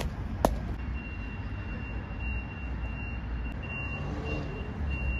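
Vehicle reversing warning beeping: a steady series of high-pitched beeps starting about a second in, over a low engine rumble. Two sharp clicks come just before the beeping starts.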